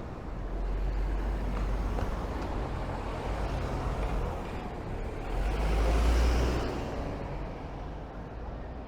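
Road traffic passing on a town street, with one vehicle going by close that is loudest about six seconds in and then fades.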